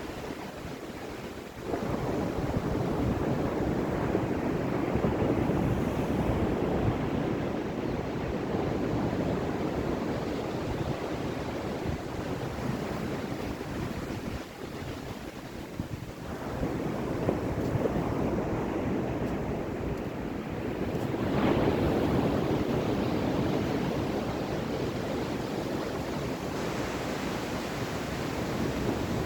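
Ocean waves surging and washing on a shore: the surf swells up about two seconds in, eases off around the middle, then builds again twice, strongest a little past two-thirds of the way through.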